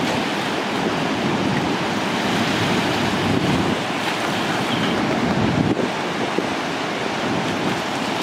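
Steady roar of river water pouring over a dam into whitewater, with wind gusting on the microphone.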